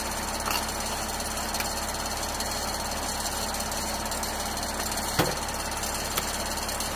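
Steady engine noise with a low hum and a thin high whine. Over it come a few sharp metal clicks from handling the Black Hawk's fuel cap, nozzle and refuelling panel, the loudest about five seconds in.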